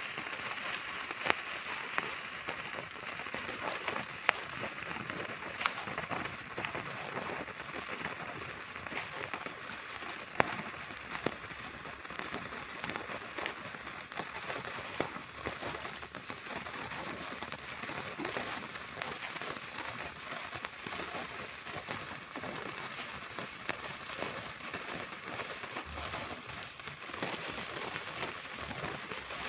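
A burning sparkler stick, used as a long fuse, fizzing and crackling steadily as it spits sparks, with a few sharp cracks scattered through.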